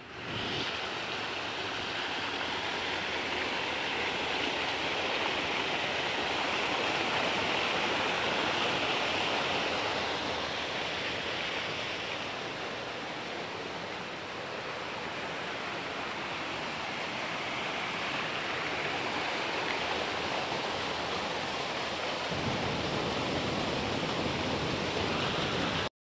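A small rocky stream running and splashing over stones, a steady rush of water.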